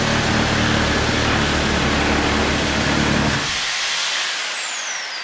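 Reciprocating saw (Sawzall) cutting wood. About three and a half seconds in the trigger is released and the motor winds down with a falling whine.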